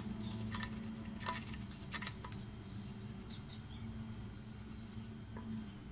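Paintbrush bristles scrubbing the metal parts of an old kerosene lamp: faint, scattered scratchy strokes over a steady low hum.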